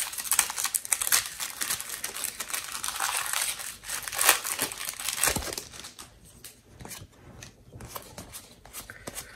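Foil Pokémon booster pack wrapper crinkling and tearing open, a dense crackle that thins out to faint scattered rustling after about six seconds.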